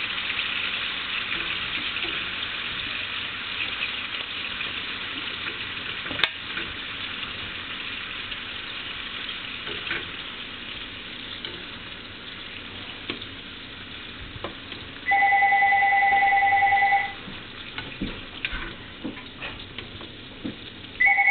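Beef and onion browning in a pan, with a steady sizzle that slowly dies down and a sharp knock about six seconds in. About fifteen seconds in, a loud two-tone electronic beep sounds steadily for about two seconds, and it starts again at the very end.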